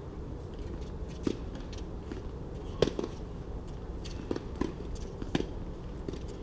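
Tennis balls being struck and bouncing on court: about five sharp, short knocks spaced roughly a second apart, the loudest about three seconds in.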